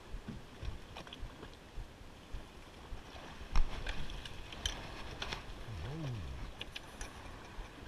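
Small fishing boat drifting on the water: a low steady wash of water and wind with scattered sharp clicks and knocks on the boat, the loudest knock about three and a half seconds in. A short low tone rises and falls about six seconds in.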